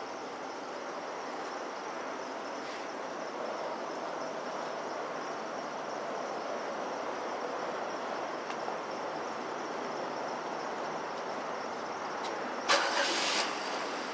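Steady car and traffic noise around a storefront parking lot. A short, loud rushing burst comes near the end.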